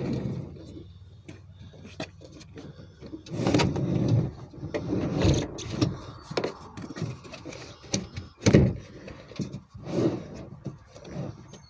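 Handling noise of a phone held in the hands: irregular rustling, clicks and knocks, with louder thumps about three and a half seconds and eight and a half seconds in.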